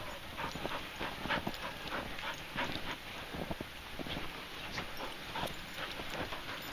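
Irregular crunching steps through deep snow, several a second, with a dog panting close by.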